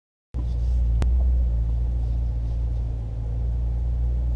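The Mercedes-AMG E 63 S's 4.0-litre twin-turbo V8 idling steadily at a standstill before a full-throttle acceleration run, a low, even rumble that starts abruptly. A single sharp click comes about a second after it starts.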